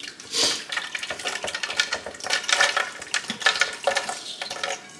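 Oily mixture of peanuts, dried chilies and sesame seeds being poured and scraped into a blender jar: a run of small clicks, clatters and scraping.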